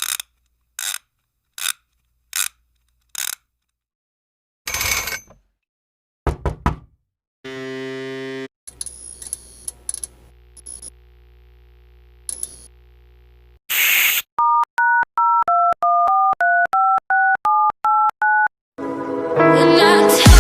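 A run of separate stock sound effects: first five sharp clicks about three-quarters of a second apart, then a few short knocks and bursts, a buzzy tone and a low hum with high beeps. About two-thirds of the way in comes a run of about a dozen touch-tone telephone keypad beeps, each made of two tones at once, followed by a rising swell near the end.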